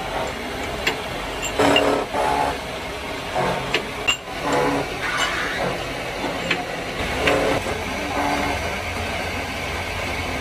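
Metalworking machine running with a steady low hum, and a few sharp metal clinks as steel rotor blanks are handled on its rotary table.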